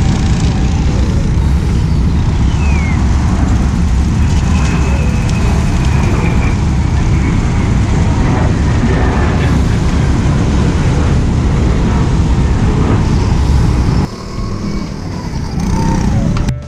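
Steady, loud low rumble of a vehicle travelling on the road. It drops suddenly about 14 seconds in.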